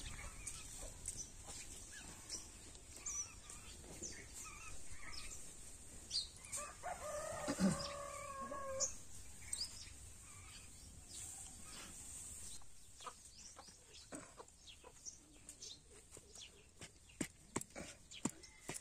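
A rooster crows once, a call of about two seconds some seven seconds in, over small birds chirping. Near the end comes a quick run of light clicks and knocks.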